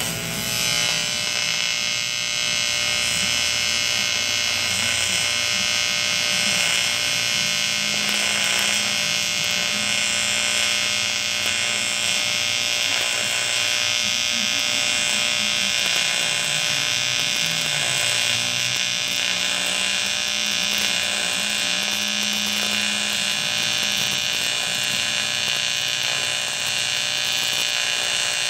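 Electric arc welding: the arc strikes at the start, then burns with a steady, even buzz and hiss.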